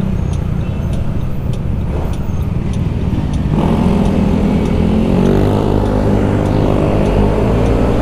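Yamaha scooter engine running under the rider, with road and wind noise; about three and a half seconds in the engine grows louder and climbs in pitch as the scooter accelerates out of a turn.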